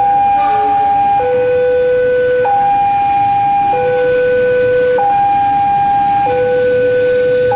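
Two-tone warning siren alternating slowly and evenly between a high and a low tone, each held about a second and a quarter.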